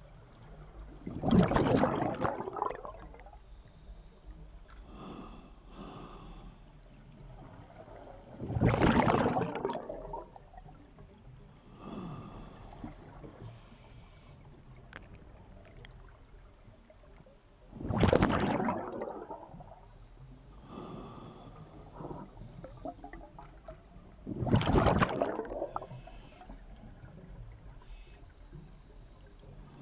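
Scuba diver breathing underwater through an open-circuit regulator: four loud rushes of exhaled bubbles about every seven seconds, each lasting a second or two, with fainter sounds between them.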